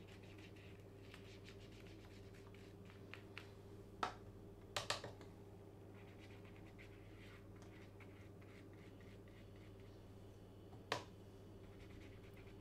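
Faint scratching of a small paintbrush working developer onto photographic paper through a plastic stencil, with a few sharp taps: one about four seconds in, a quick pair a second later, and one near the end. A steady low electrical hum lies underneath.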